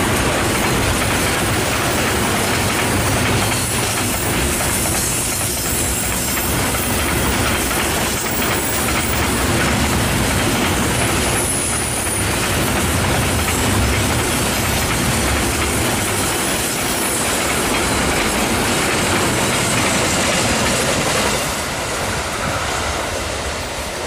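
Container freight train wagons rolling past close by, the wheels clattering over the rail joints, with brief high wheel squeals on the curve a couple of times. Near the end the sound drops a little as the train is heard from farther off.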